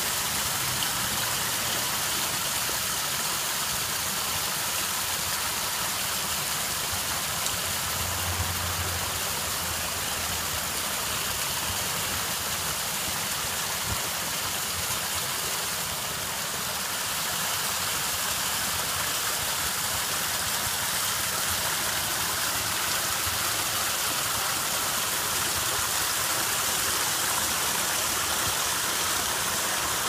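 Water from a newly built garden waterfall splashing steadily over a stone spillway into the basin below, during its first test run for leaks.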